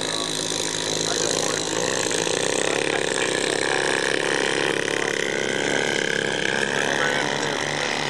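Engine of a Mamba 120 giant-scale RC aerobatic plane in flight, a steady drone whose pitch climbs about two seconds in and sinks again later as the plane manoeuvres.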